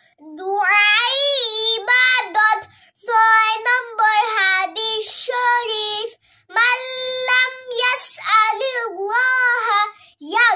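A young girl singing solo in a sing-song chant, without accompaniment. She holds long notes with gliding, wavering pitch, in phrases broken by short pauses for breath.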